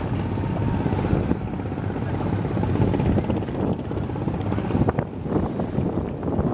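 Wind buffeting the microphone over the low, uneven rumble of a boat on the river.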